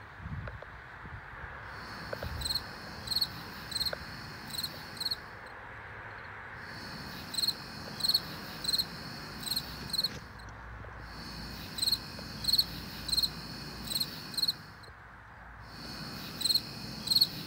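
A cricket chirping: short, high chirps about three every two seconds, coming in runs of a few seconds broken by brief pauses.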